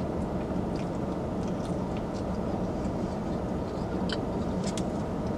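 Steady low hum inside a car's cabin, with a few faint clicks from eating about four to five seconds in.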